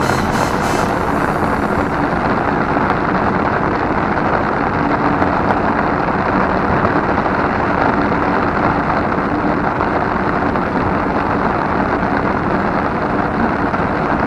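Rain falling on an umbrella, heard from beneath it: a dense, steady patter, very noisy.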